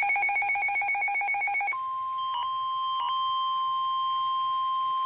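A weather radio's alert: a rapidly pulsing alarm beep for about the first second and a half, then the steady single-pitch 1050 Hz NOAA Weather Radio warning alarm tone, with two faint clicks in it, heralding a tornado warning.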